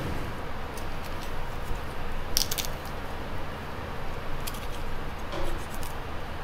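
Knife cutting meat off a duck carcass on a plastic cutting board: a few short clicks of the blade against bone and board, in small clusters, over a steady low kitchen hum.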